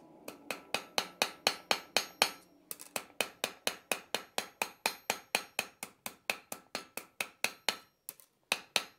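Hand hammer striking white-hot iron on an anvil, about four blows a second with a faint ring after each, forge-welding a spoke bar into an iron ring. The blows break off briefly about two and a half seconds in, then stop near the end and resume just before it closes.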